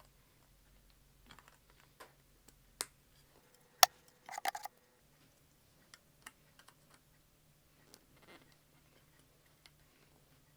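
Scattered light clicks and taps from handling a model airliner and its plastic packaging. One sharp click about four seconds in is followed by a brief rattling cluster.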